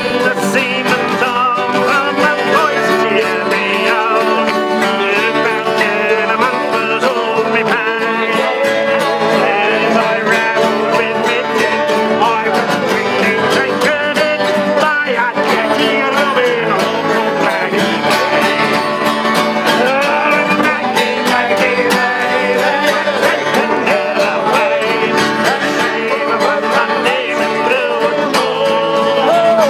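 A sea shanty band singing in chorus to strummed acoustic guitars, a mandolin and accordions.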